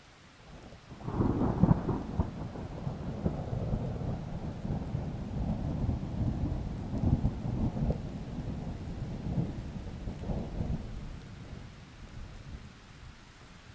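Thunder rolling over a faint hiss of rain. The thunder breaks about a second in, is loudest just after, and rumbles on with crackling peaks for about ten seconds before fading near the end.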